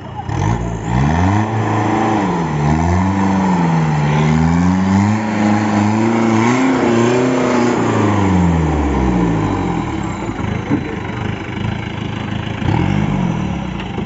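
A 4x4 off-road vehicle's engine revving hard, its pitch climbing and dropping several times over about eight seconds as the driver works the throttle. It then dies away, with one short rev near the end.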